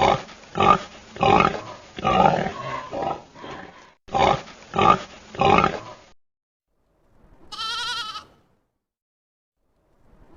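A farm animal grunting in a rapid series of short calls, about one or two a second, for some six seconds. Then two quavering sheep bleats, one about seven and a half seconds in and one at the very end.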